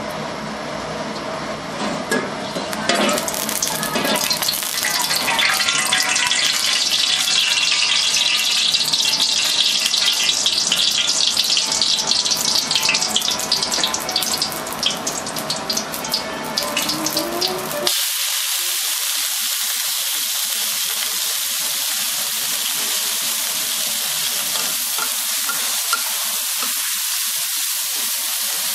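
Hot oil in a steel wok on a gas burner, crackling and spitting irregularly. About two-thirds of the way in it cuts abruptly to a steady hiss as reed wormwood (Artemisia selengensis) stems sizzle and steam in the wok.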